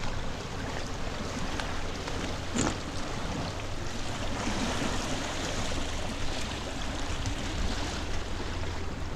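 Steady rushing of a flood-swollen creek, with a low rumble of wind on the microphone and a single click about two and a half seconds in.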